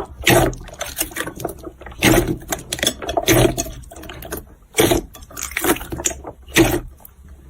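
Jiggly slime being squeezed and pressed by hand, giving short wet squelches and pops at an irregular pace of about one or two a second.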